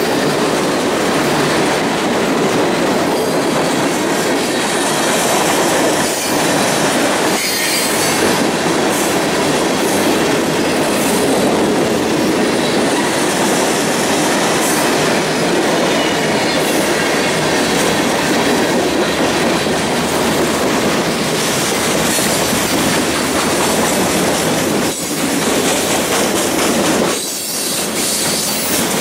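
Freight cars rolling past close by: a loud, steady rush of steel wheels on rail, broken by a few sharp clicks from the wheels and trucks.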